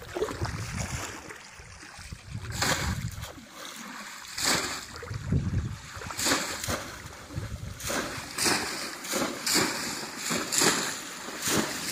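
Shallow water splashing as bamboo polo plunge-basket fish traps are thrust down into it again and again, about one splash a second from a few seconds in.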